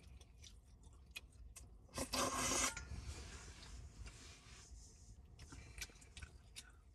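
Scattered small clicks and handling noises, with a brief loud scraping rustle about two seconds in that fades into a softer hiss.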